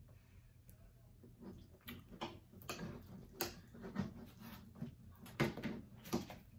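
Hands squeezing and kneading sticky homemade slime: a run of irregular short sticky clicks and squishes, getting more frequent and louder from about a second and a half in.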